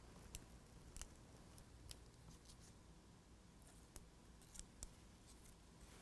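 Faint, scattered clicks and crinkles of hands handling a plastic window visor and peeling the red protective liner film off its adhesive tape, over near-silent room tone.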